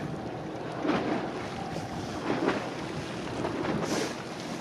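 Wind buffeting the microphone at the harbour edge, with gusts about a second in and again midway, over sea water washing against the pier.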